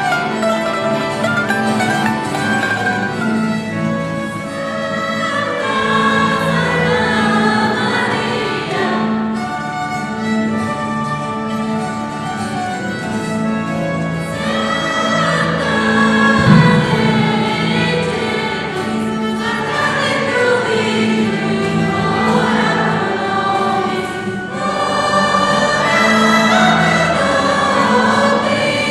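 Group of voices singing a traditional Sicilian Christmas song together, with instruments accompanying them and a sustained low note underneath.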